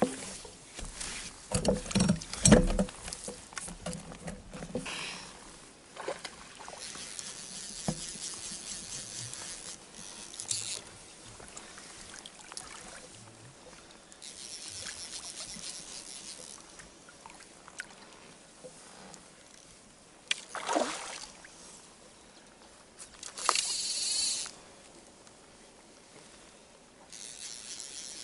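Fly-fishing gear handled in a pontoon boat: knocks and splashing in the first few seconds, then several short buzzing spurts from a fly reel as line is reeled and pulled off it, with a brief swish near the end.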